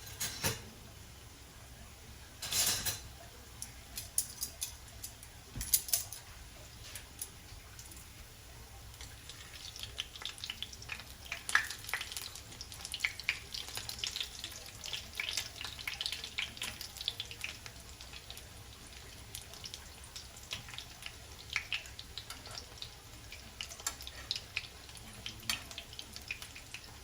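Tuna-and-egg fritters frying in a pan of hot oil, crackling and popping irregularly, busier from about nine seconds in. A few sharp knocks of a utensil on the pan or plate come in the first few seconds.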